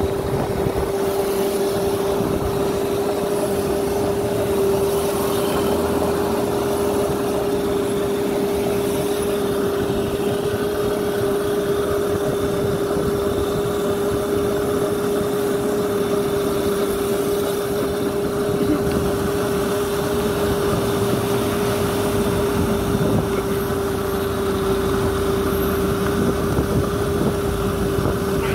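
Electric motorbike running on Makita power-tool batteries, riding at a steady speed: its motor gives a steady whine that holds one pitch, over continuous wind and road rumble.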